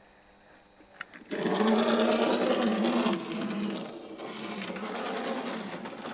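A click, then a small electric motor starts up with a fast, fine rattle. It is loud for about two seconds, then runs on more quietly.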